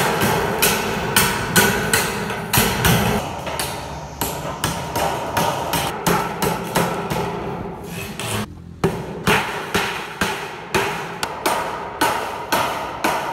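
Hammer blows on a sheet-metal gutter, knocking down the cut tabs around a downspout hole: quick, repeated taps, about two to three a second, with a short break about eight and a half seconds in.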